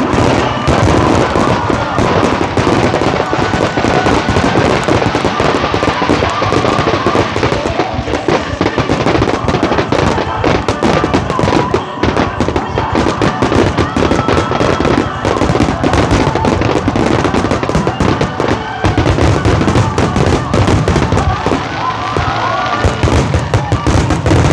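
Fireworks finale: many aerial shells and fountains going off at once in a rapid, continuous barrage of bangs and crackling.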